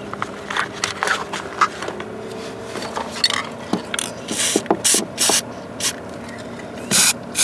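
Aerosol can of spray-on plastic coating hissing in several short bursts, mostly in the second half, with handling clicks and rattles between them.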